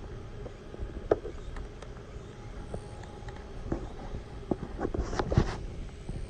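Handling noise from a large radio-control F/A-18 model jet: scattered light knocks and clicks, with a quick cluster of louder ones about five seconds in as the model is picked up. A low rumble runs underneath. The jet's ducted fans are not running.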